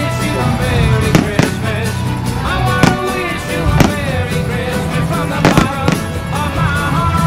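Fireworks bursting, several sharp bangs a second or so apart, over loud music playing on a sound system.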